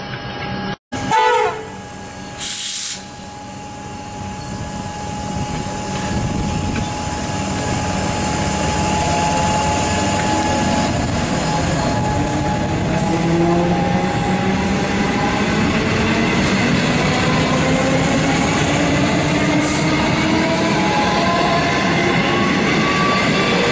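Comeng electric suburban train: a short horn blast about a second in, then the train passes close by with wheel and rail noise, its motor whine climbing slowly in pitch as it accelerates away.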